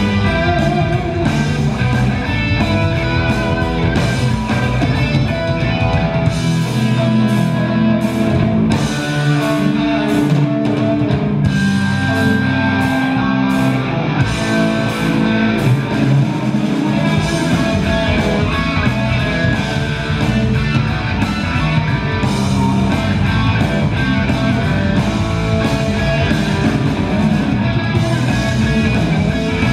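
Live instrumental blues-rock band playing loud and continuous: two overdriven electric guitars trading lines over bass guitar and drums. The bass and kick thin out for a stretch in the middle, leaving the guitars to carry it.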